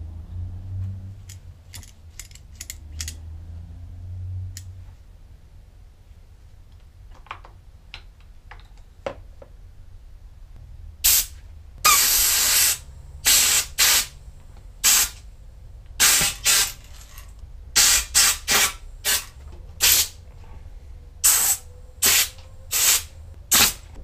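A dozen or so short, loud hissing spray blasts, each under a second, worked at a handlebar grip to loosen it, after a few light tool clicks.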